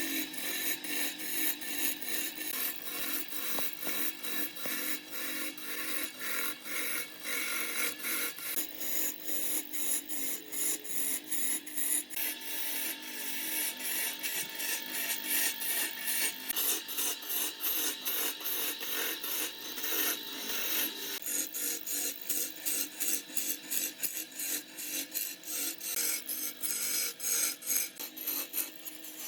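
Wood being rubbed down in rhythmic abrasive strokes, about two a second, a dry rasping scrape.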